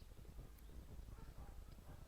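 Faint sounds from baby goats feeding, with faint pitched sounds in the second half over a low steady rumble.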